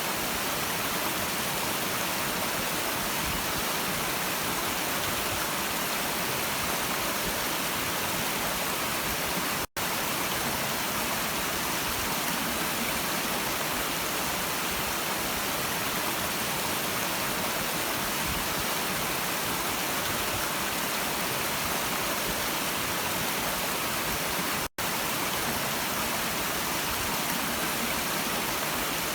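Brook water rushing, a steady dense hiss, cutting out for an instant twice.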